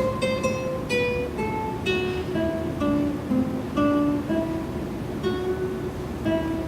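Music: a slow melody of single plucked string notes, about one or two a second.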